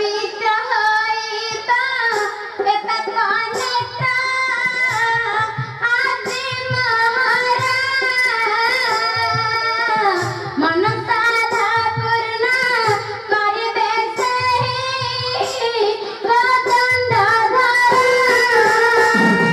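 A girl's voice singing a slow Odia jatra song in long, wavering held notes, over instrumental accompaniment with steady drum beats.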